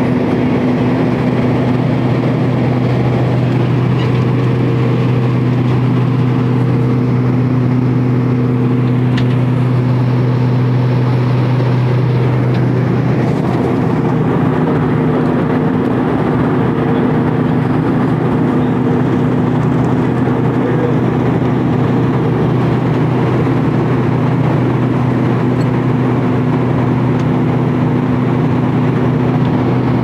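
Airliner cabin noise in level flight: a steady, loud engine drone with a constant low hum, which shifts slightly about halfway through.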